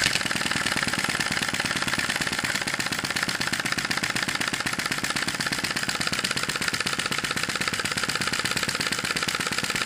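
Sai Hu V1-45 vacuum (flame-licker) model engine running with a rapid, even mechanical clatter as it draws a flame in through its valve port. Its cylinder has been preheated, which lets it start straight away and run steadily.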